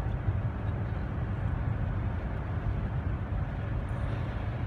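Steady road and engine rumble heard inside the cabin of a car driving on a snow-covered highway.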